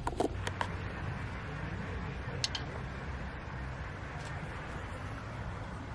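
A low, steady distant rumble, heard as the scariest, ghostish-sounding train, though it is unclear whether it is a machine or a flock of animals. A few faint clicks sound over it.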